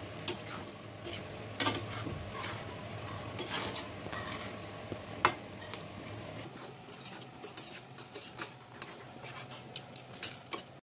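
Spatula stirring and turning rice in a metal pan, scraping and clinking against the pan at irregular moments, more often in the second half.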